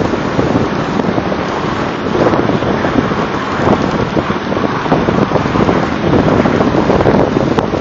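Wind rushing over a microphone held out of a moving truck's window. Under it are the truck running and a homemade A-drag scraping and plowing through snow, all blended into one loud, steady noise with a low rumble.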